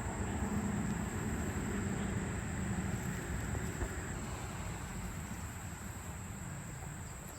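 Steady outdoor background noise: a low rumble under a constant thin high-pitched tone, with a low hum that fades out about three seconds in.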